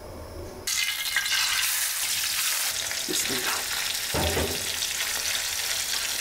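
Scored puti fish (small barb) frying in hot soybean oil in a nonstick pan: a loud, steady sizzle that starts abruptly under a second in, with a spatula stirring in the pan.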